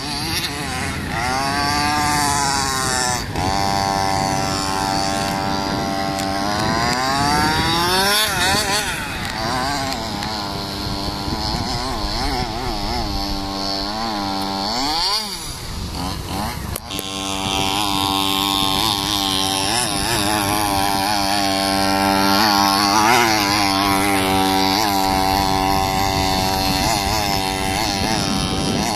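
Small engine of a radio-controlled model running hard, its pitch rising and falling again and again as the throttle is worked. The pitch sinks briefly about halfway through, then picks up again.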